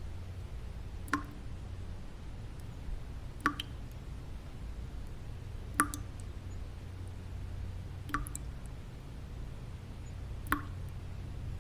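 Single water drops falling one at a time, five in all, about every two and a half seconds, over a steady low white-noise bed.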